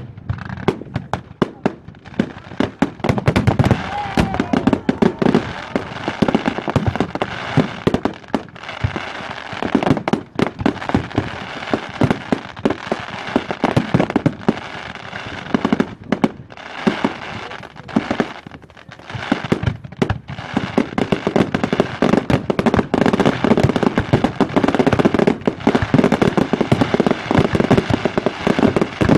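Fireworks display going off: a near-continuous barrage of rapid bangs and crackling reports, thinning briefly a few times before building back up.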